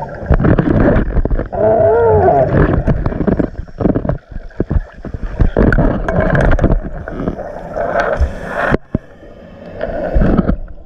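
Muffled underwater sound of scuba divers' exhaled bubbles and water churning around the camera, with a louder hiss about eight seconds in that cuts off suddenly.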